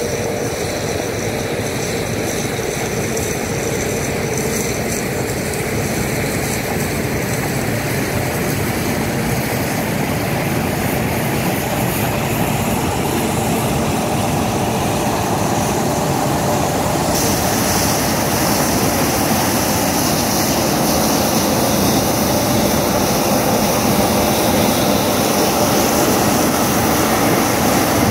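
Claas Lexion combine harvester cutting and threshing wheat: a steady mechanical din of engine and threshing machinery that grows slowly louder as it comes closer. About two-thirds of the way through, a brighter hiss joins in as the machine passes close.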